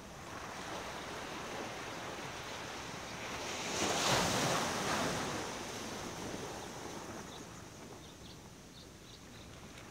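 Ocean surf: a steady wash of waves that swells into a louder rush about four seconds in, then dies away.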